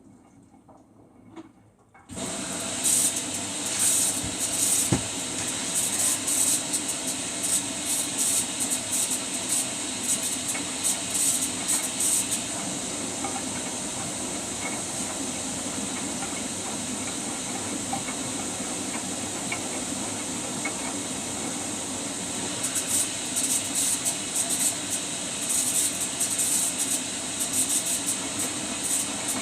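Samsung washing machine taking in water for a rinse: a loud, steady rushing hiss of water that starts suddenly about two seconds in, with spells of crackling on top.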